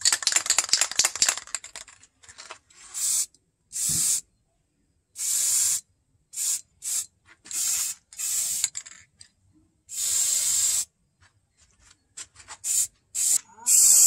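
Aerosol spray can shaken for about two seconds, its mixing ball rattling, then sprayed in about ten short hissing bursts onto a knife's blade and wooden handle.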